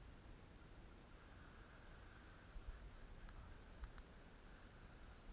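Faint songbird song: thin, high drawn-out whistles that drop in pitch at their ends, with a quick wavering descending trill near the end. A couple of faint ticks come in the middle.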